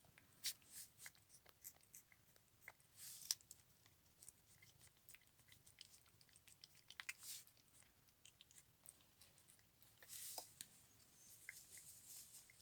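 Faint chewing and crunching of dry treats by a cat: scattered short crunches and clicks, with louder bouts about three, seven and ten seconds in.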